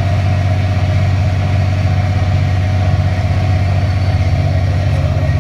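Fishing boat's inboard engine running steadily under way: a loud, even drone with a fast, regular pulse.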